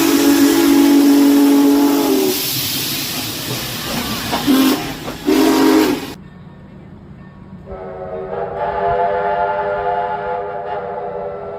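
Locomotive air horns sounding. A low horn chord stops about two seconds in, leaving the noise of the passing train, then two short blasts. After a cut, a different, higher-pitched horn chord starts and holds steady.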